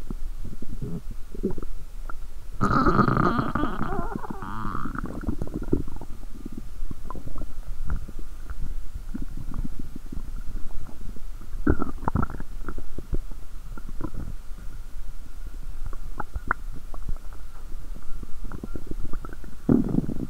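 Human stomach and intestines gurgling and popping irregularly while digesting a large amount of probiotic lactic-acid-bacteria drink. About three seconds in comes a longer, louder gurgle with a squeaky whine, followed by scattered pops and gurgles.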